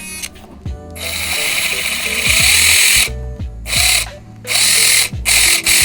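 Tiny electric drive motor of a 1:64 scale micro RC drift car whirring in bursts as it is driven: one long burst about a second in, then several shorter ones. Background music plays underneath.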